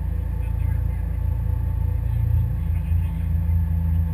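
Pinzgauer off-road truck running, heard from its open rear cargo bed: a deep, steady rumble.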